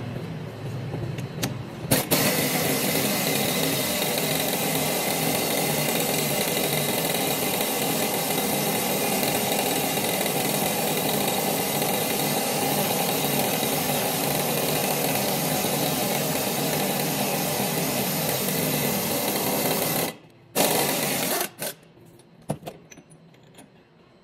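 Impact wrench hammering steadily on a ball joint press screw, forcing the lower ball joint of a 2017 Dodge Ram 1500 out of the steering knuckle. It starts about two seconds in, runs for well over fifteen seconds, then stops suddenly and is followed by a few scattered clicks and knocks.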